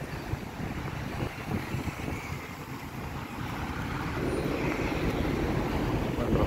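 Road traffic in a slow-moving jam: a steady rumble of car and truck engines, growing louder about four seconds in.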